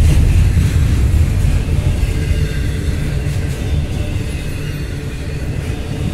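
Double-stack intermodal well cars rolling past on the rails, a steady low rumble of steel wheels on track that eases slightly toward the end.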